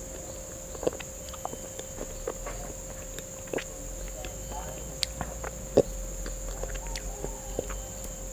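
Close-miked mouth sounds of eating a Milo ice cream bar: scattered wet smacks, licks and sucks at the wooden stick, one sharper smack about six seconds in, over a faint steady hum.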